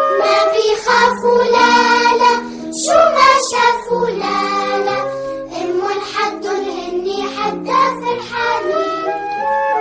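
Children's song: a child's voice singing a melody over held instrumental backing notes.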